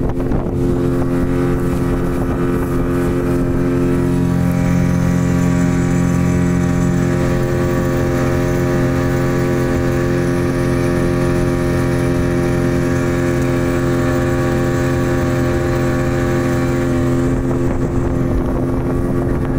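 A boat's engine running at a steady speed, a loud even drone that holds one pitch throughout.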